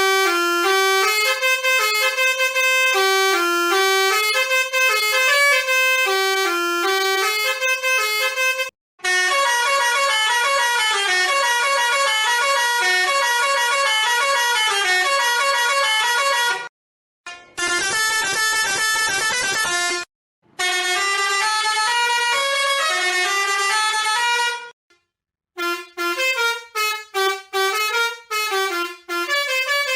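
Road Master RM-615 six-trumpet musical air horn playing a run of its built-in melodies, loud multi-note horn tones stepping through each tune. There are short breaks between tunes, and the last tune near the end is played in quick, clipped notes.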